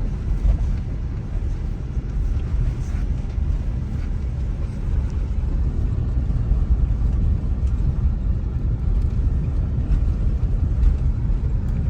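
Steady low rumble of a car driving on a road, heard from inside the cabin: engine and tyre noise.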